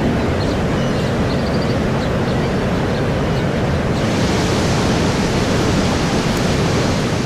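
Steady rush of water pouring down the Saturnia thermal waterfall, a loud, even noise. About four seconds in it turns brighter and hissier.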